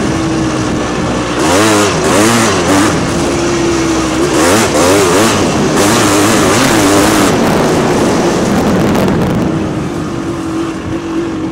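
Yamaha Blaster ATV fitted with a YZ400 engine, ridden hard on a tight trail: the engine runs at a steady pitch, then its revs rise and fall rapidly over and over for several seconds as the throttle is worked, before settling back to a steadier, slightly lower drone near the end.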